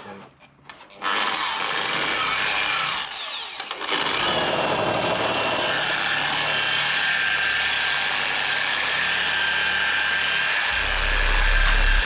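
Electric machine polisher with a cutting pad and heavy-cut compound buffing a car's front guard. It starts about a second in, dips briefly, then runs steadily. Music with a heavy bass comes in near the end.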